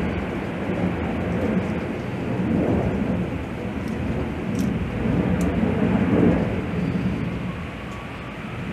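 Air conditioner running: a steady hum and rush of noise, with a couple of faint light clicks about halfway through.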